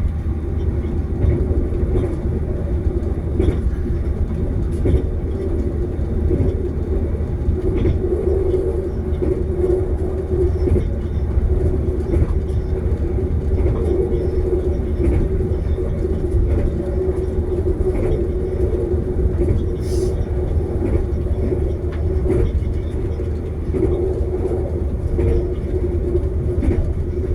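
Running noise of a moving passenger train heard from inside the carriage: a steady low rumble with a hum, and faint clicks now and then.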